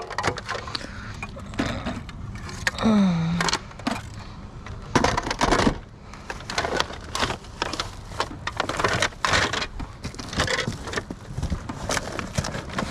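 Rummaging through curbside trash: irregular rustling, crinkling and knocking of items being handled and shifted. There is a brief voiced hum about three seconds in.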